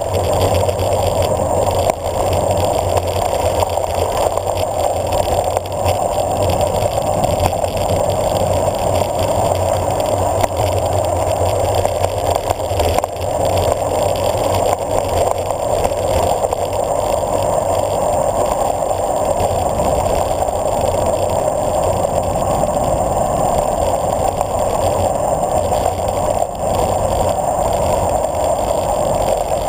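Steady rush of wind and tyre noise on a handlebar-mounted camera as a road bicycle coasts downhill on pavement, muffled and even throughout.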